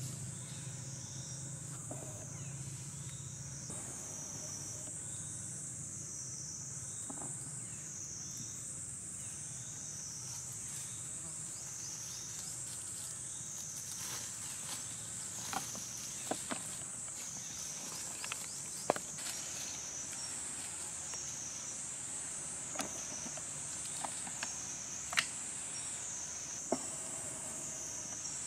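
A high, shrill chorus of insects that swells and falls about once a second, with scattered sharp clicks and snaps in the second half.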